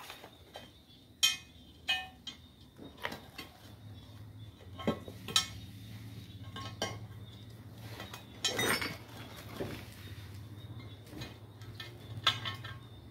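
Irregular light knocks and metallic clinks, with a longer scuffing rub about eight seconds in, as a new inner tube is tucked by hand into a motorcycle tyre on its alloy wheel. A low steady hum sets in underneath about four seconds in.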